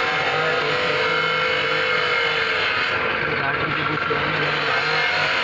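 Steady mechanical running noise, like an engine or motor, with indistinct voices in the background.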